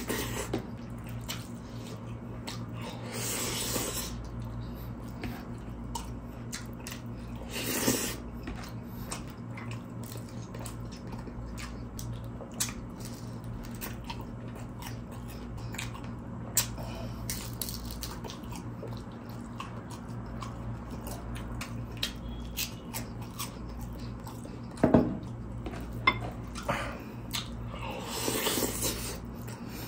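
Close-miked chewing and wet mouth sounds of someone eating rice with Bicol Express and fried spring rolls (lumpiang shanghai), with small clicks throughout and a few louder bites. A steady low hum lies underneath.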